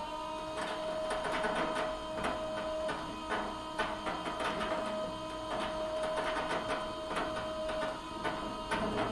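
A machine running with a steady motor whine, while brown eggs on its perforated tray knock and rattle against it in frequent irregular clicks.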